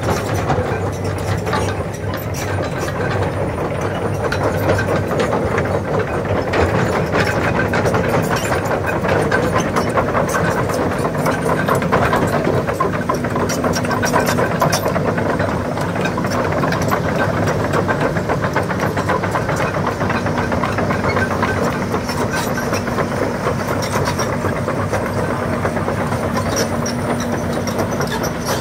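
Hydraulic excavator's diesel engine running steadily, with frequent knocks and rattles from the machine working.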